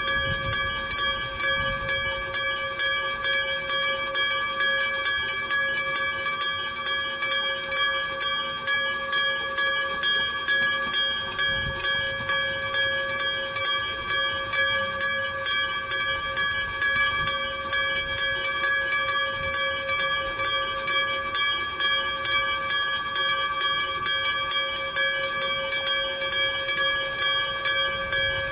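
Iron gong-type electric level-crossing warning bell (a 1970 Kyosan unit) ringing continuously, struck about twice a second, each strike leaving a clear metallic ring.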